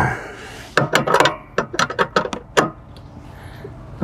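A short scrape, then a ratchet wrench clicking in a run of short, irregular strokes, snugging down the front mounting bolts of a boat seat suspension box.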